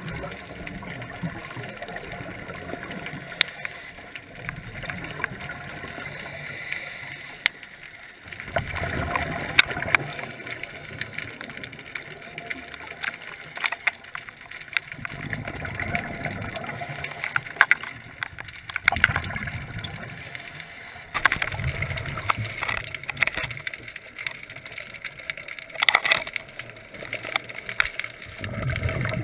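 Scuba diver breathing underwater through a regulator, heard through the camera housing: a gush of exhaled bubbles about every five to six seconds, with scattered sharp clicks in between.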